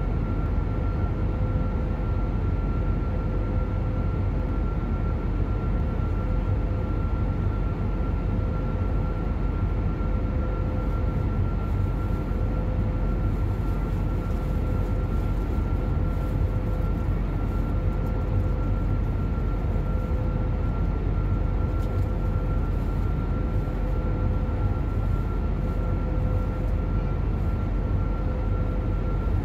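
Cabin noise of an Airbus A321neo in flight, heard from a window seat beside its Pratt & Whitney PW1100G geared turbofan: a steady, deep rushing drone of engine and airflow, with two faint steady hums on top, one mid-pitched and one higher.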